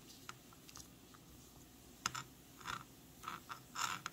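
Faint handling noise from a paper product tag on bamboo tongs being turned over by hand: a few light ticks, a sharp click about two seconds in, then several short rustles of the tag near the end.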